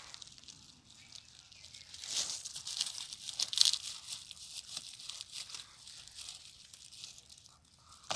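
Dry fallen leaves and twigs crackling and rustling under a hand digging a porcino mushroom out of the forest floor, in a run of uneven crackles that are loudest in the middle.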